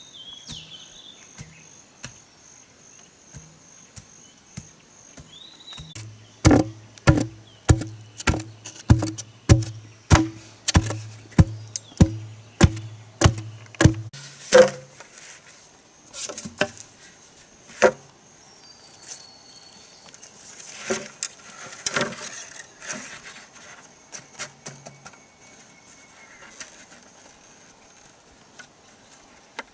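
A wooden stick pounding the earth around an upright bamboo post, a run of heavy even thuds about two a second for some eight seconds, followed by a few scattered knocks of bamboo being handled. Insects buzz steadily in the background.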